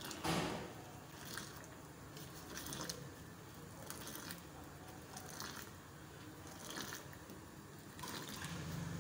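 Boiling milky tea being ladled up and poured back from a height into a steel saucepan, splashing into the pan in repeated pours a little over a second apart. The loudest one comes just after the start.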